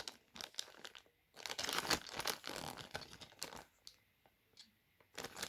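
Packaging crinkling and rustling as it is handled, with small clicks; a longer stretch about one and a half seconds in, then a short one near the end.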